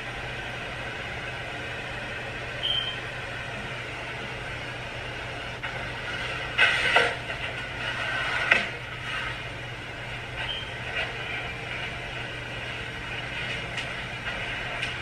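Room tone with a steady low hum, broken by a few brief knocks and rustles, the loudest about seven and eight and a half seconds in.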